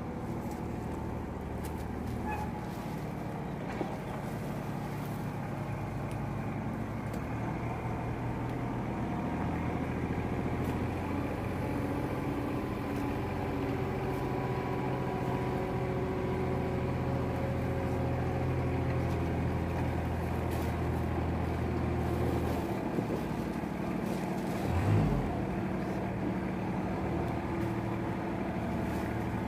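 Engine running steadily nearby, a low hum that shifts in pitch a few times, with a short louder swell near the end.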